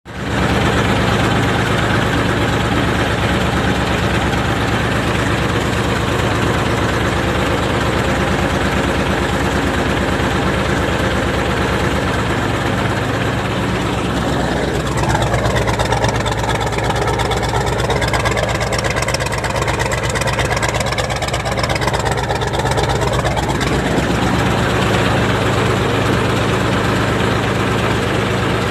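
Mitsubishi 8DC V8 marine diesel engine running steadily at idle, with a wavering higher tone rising and falling over it for several seconds in the middle. The engine is running with cylinder number 1's injector not spraying, a fault traced to a dirty, stuck delivery valve in the fuel injection pump.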